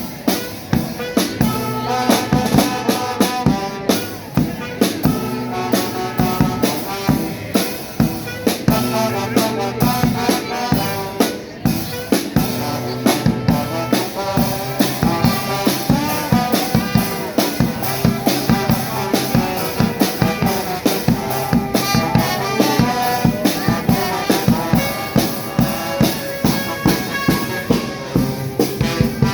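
A charanga street band playing: a drum kit with bass drum and snare keeps a steady, fast beat under a brass melody.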